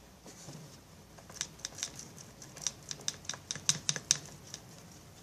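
A spoon stirring clear glue in a bowl, clicking and scraping against the bowl in quick, irregular taps that start about a second in.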